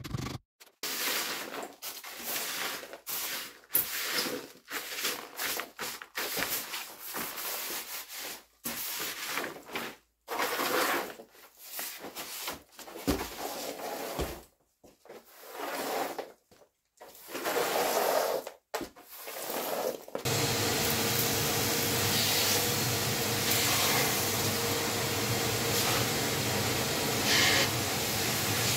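Short, irregular scraping and rubbing as wood chips and rubble are swept across the floor. About twenty seconds in, a shop vacuum starts and runs steadily with a constant hum.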